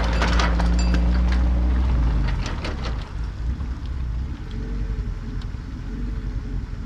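A Lada Niva's engine pulling away with an empty boat trailer across gravel, the trailer clattering. The engine sound drops away about two and a half seconds in, leaving a fainter background.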